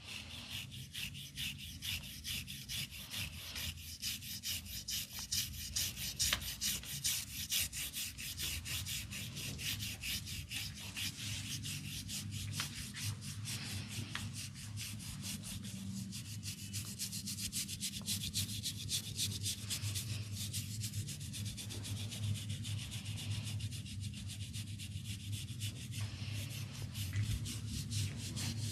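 Hands rubbing vigorously through hair and over the scalp in a head massage: a fast, continuous scratchy rubbing of several strokes a second, close to the microphone.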